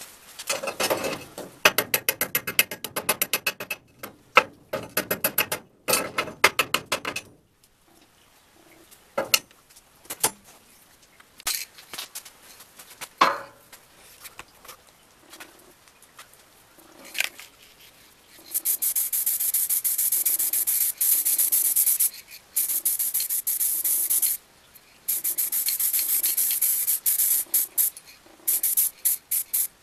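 Several seconds of quick rubbing strokes, then an aerosol spray paint can hissing in long bursts with short breaks as it coats the metal winder in silver paint. The spray hiss is the loudest sound.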